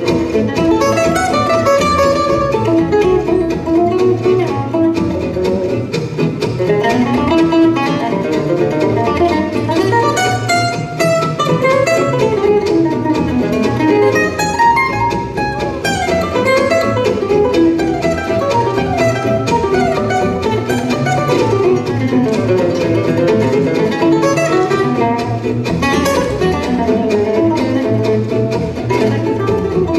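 Live gypsy jazz: a Selmer-Maccaferri-style oval-hole acoustic guitar picks a fast single-note solo with quick runs up and down, over a second guitar's strummed rhythm and plucked double bass.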